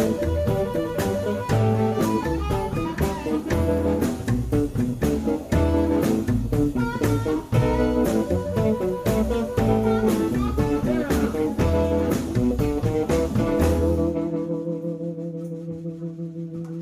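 Live blues band playing: harmonica, upright bass, electric guitar and drums in a steady shuffle. About fourteen seconds in, the drums and bass stop and a final chord is held, fading as the song ends.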